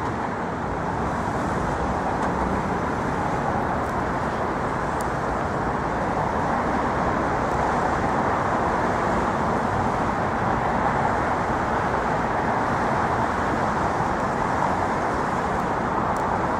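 Steady city street traffic noise: an even roar of passing vehicles with no single event standing out.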